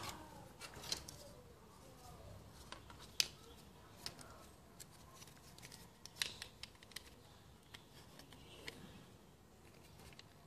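Scattered sharp clicks and taps of a plastic toy revolver being handled, about half a dozen spread irregularly, the loudest right at the start, with faint rustling between.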